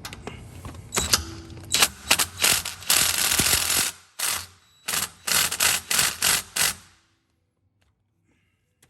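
Stock exhaust section of a Can-Am Defender being wiggled loose from the vehicle: a run of loud, irregular metal rattling and scraping bursts that stops about seven seconds in.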